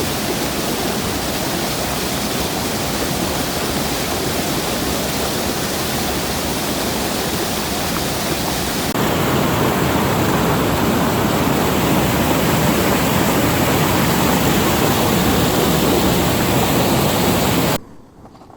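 Loud, steady rush of a waterfall pouring over a dam. About halfway through it switches to a slightly louder take, and it cuts off suddenly near the end.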